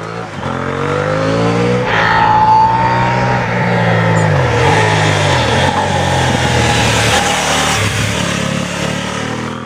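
KTM 790 Adventure motorcycle's 799 cc parallel-twin engine running hard under way, over road and wind noise. The engine note dips briefly and picks up again about halfway through.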